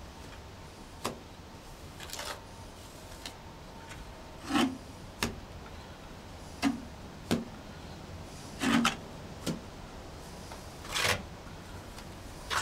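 Wet fibre-reinforced mortar being scooped from a plastic bucket and worked onto a block pond wall: a series of short, rough scrapes and rubs at irregular intervals, roughly one every second.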